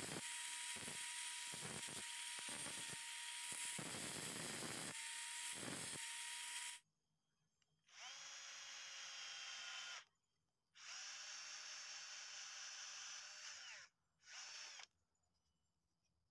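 Angle grinder running with a steady whine, its disc biting into bamboo in repeated strokes, then shutting off about seven seconds in. A power drill with a long spiral bit then bores through bamboo in three runs, about two seconds, three seconds and a brief half-second burst, its pitch dropping as it spins down after each.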